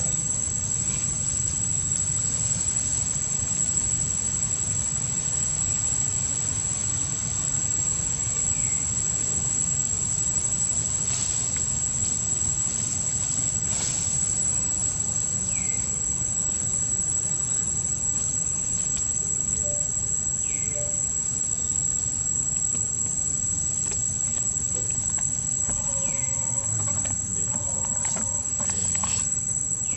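A steady high-pitched insect drone over a low background rumble, with a few short high chirps scattered through.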